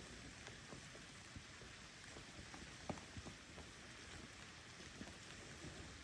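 Light rain pattering on a lake's surface: a faint, steady hiss dotted with small drop ticks, one louder tick about three seconds in.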